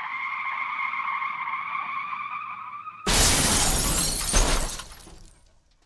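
Sound effects of a car crash: a long, steady, high screech, then about three seconds in a sudden loud crash of shattering glass and breaking debris that dies away over about two seconds.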